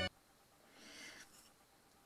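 Near silence after background music cuts off at the start, with one faint, short breath about a second in.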